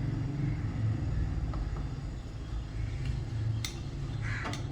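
A steady low hum, with a couple of light clicks of dishes being handled near the end.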